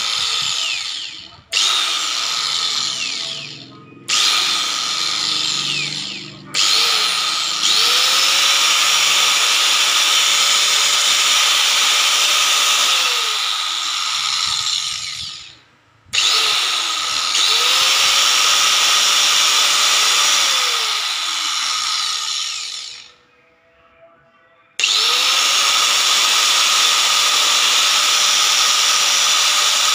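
Enka Slim (LY-S1004) electric angle grinder running free with no disc fitted, switched on and off several times. It gives short bursts first, then longer runs of several seconds, each spinning up with a rising whine to a steady, smooth high pitch and winding down when switched off.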